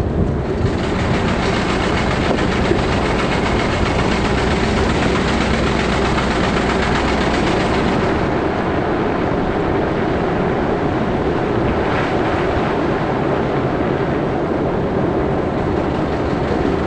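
Steady road noise of a moving car, tyres and engine, heard from inside the cabin, with a brighter hiss over roughly the first half that then eases.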